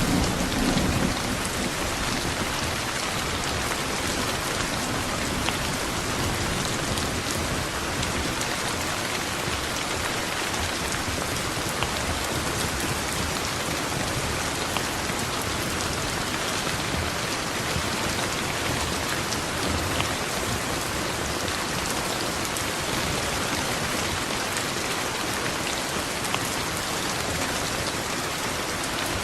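Steady rain pouring down, an even hiss with scattered drop ticks, while the last of a thunder rumble fades out in the first second or so.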